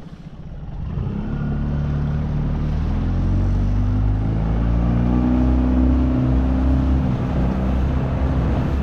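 Inflatable dinghy's outboard motor throttling up about a second in, its pitch climbing as the boat gets under way, then running steadily at speed over a hiss of wind and water.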